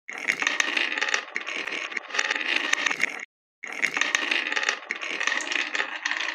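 Several glass marbles rolling and clattering along carved wooden marble-run tracks, a steady rattle dotted with small clicks as they knock the channel walls and each other. The sound cuts out completely for about a third of a second a little past the middle, then carries on.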